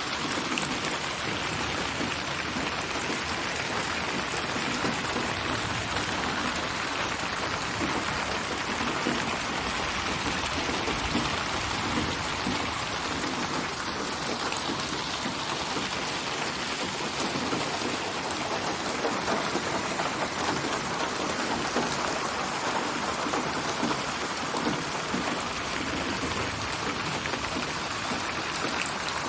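Steady rain falling, a dense even hiss of many small drops hitting a surface.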